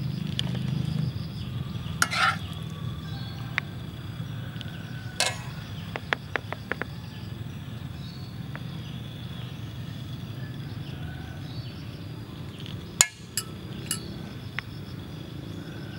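A metal slotted spatula clinks and taps against a frying pan as fried egg and vegetables are lifted onto bread, with a few scattered sharp clinks and a quick run of small ticks; the loudest clink comes near the end. A steady low hum runs underneath.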